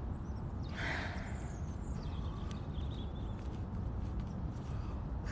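Cane Corso dogs sniffing at the ground, with one short breathy burst about a second in, over a low steady rumble.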